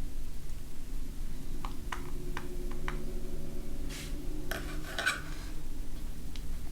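Small hard clicks and clinks of precision repair tools, tiny screws and parts being handled while an iPhone X is taken apart, with a brief clattering scrape about four to five seconds in.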